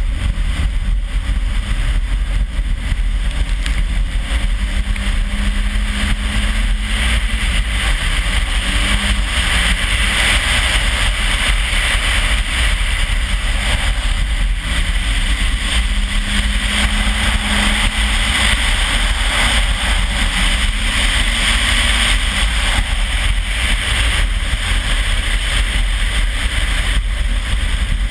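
Toyota RAV4's turbocharged 3S-GTE engine running hard at speed, faint under a steady wind rumble on the microphone and a loud hiss of tyres spraying water and slush off the ice. The engine pitch climbs and holds twice, about four seconds in and again about fourteen seconds in.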